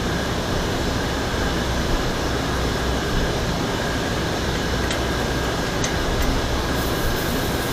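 Steady whirring of a running fan with a faint steady high whine, and a few light clicks in the second half.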